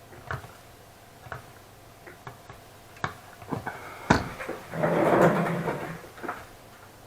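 Small hard parts being handled and set down on a work surface: scattered light clicks and knocks, a sharper knock just after four seconds, then about a second of scraping rustle.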